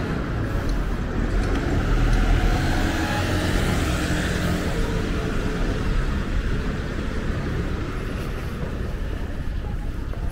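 Street traffic: a motor vehicle going by, louder about two seconds in and then fading, over a steady background of street noise.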